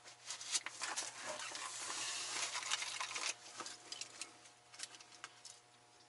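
Close rustling and scraping of clothing and gloved hands as a person moves and handles things, a dense scratchy patch for about three seconds followed by a few scattered clicks.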